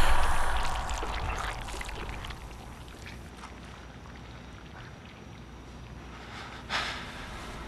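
Liquid splashing and pouring, fading out over about three seconds and leaving a low rumbling drone, with a short burst of hiss near the end.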